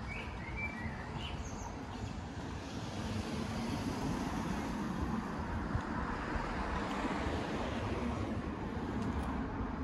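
Road traffic: a passing vehicle whose noise builds over a few seconds and eases off near the end.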